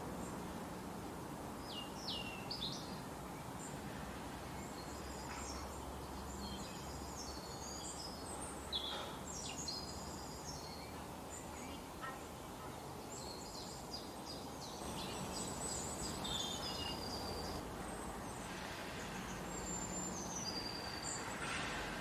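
Forest ambience: several songbirds chirping and trilling on and off over a steady background hiss.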